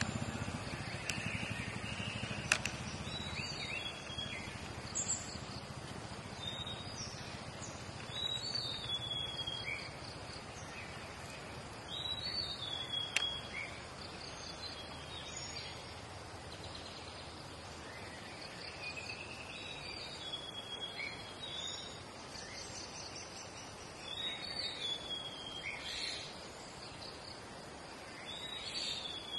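Birds calling in short chirpy phrases every few seconds over a steady background hiss of insects in roadside forest.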